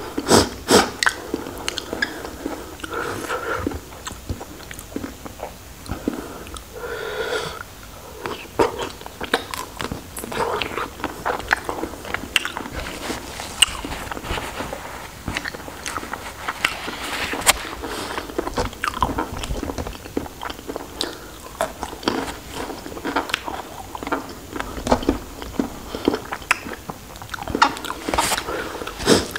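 Close-miked chewing and biting of raw shrimp dipped in chili sauce: wet smacking and crunching mouth sounds with frequent sharp clicks, going on steadily.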